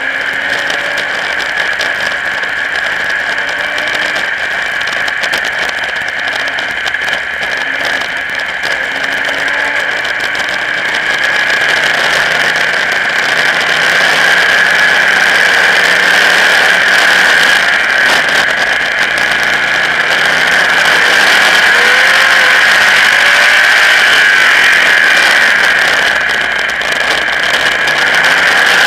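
Race car engine running at racing speed, its pitch rising and falling through the corners, heard from a camera on the car's hood under a strong steady rushing noise. It gets louder about halfway through.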